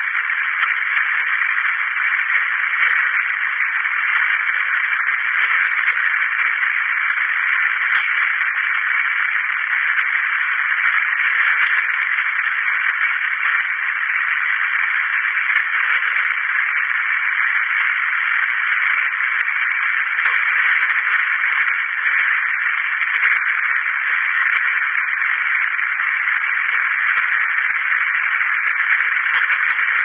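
Steady hiss of radio static, white noise from a tabletop radio tuned between stations, unbroken throughout with only faint crackles now and then.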